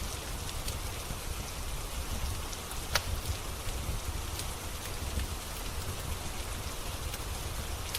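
Steady rain falling, mixed with the scattered sharp crackles and pops of a wood fire; the loudest pop comes about three seconds in, under a low, steady rumble.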